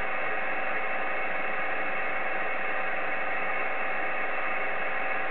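Icom IC-7300 transceiver receiving on 10-meter sideband with no one transmitting: a steady static hiss from the speaker, with a couple of faint steady whistling tones in it.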